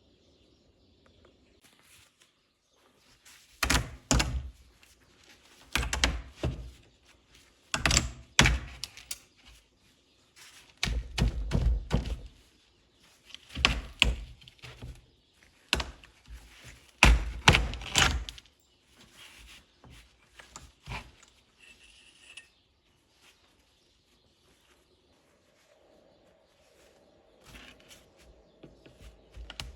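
Repeated heavy thunks, in quick groups of two or three about every two seconds, for roughly fifteen seconds, then stopping.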